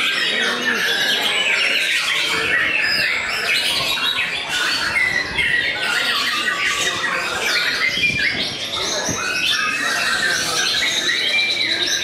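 White-rumped shama (murai batu) singing a dense, continuous run of varied whistles, trills and chattering phrases, with other caged songbirds singing at the same time.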